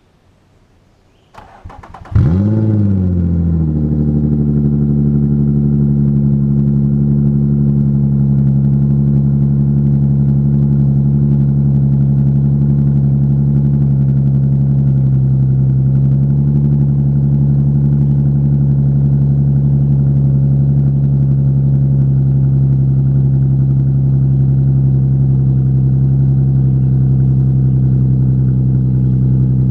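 Infiniti G35's V6 cranked over briefly and starting about two seconds in, flaring up as it catches, then idling steadily and loudly. The exhaust is open, running through headers and test pipes and ending at the Y-pipe, with leaks at the flex joints, and it sounds like shit.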